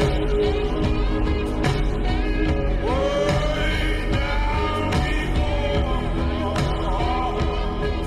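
Background music: a song with a sung melody over a steady beat.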